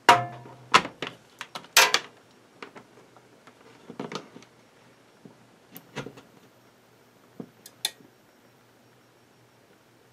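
Sharp clunk as the mains plug goes in and the old Conti-Line UPS battery charger powers up, with a brief low hum, followed by scattered clicks and knocks of handling on the workbench.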